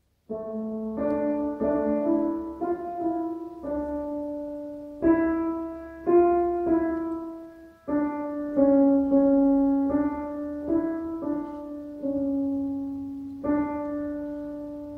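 Slow piano music: single notes struck one after another, each ringing and fading before the next, starting just after a moment of silence.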